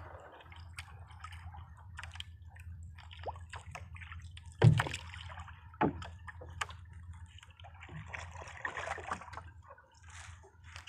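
Hand paddle strokes in sea water beside a small outrigger boat: irregular splashes, sloshes and drips, the loudest two about a second apart near the middle, over a low steady hum.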